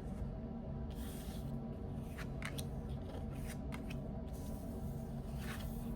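Tarot cards being handled and laid out: a few short, light rustles and flicks over a steady low background hum.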